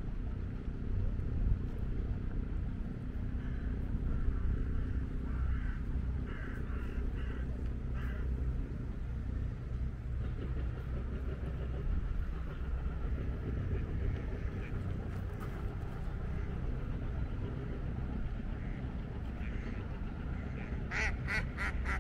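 Ducks quacking in runs of short repeated calls, a few seconds in and again more strongly near the end, over a steady low rumble.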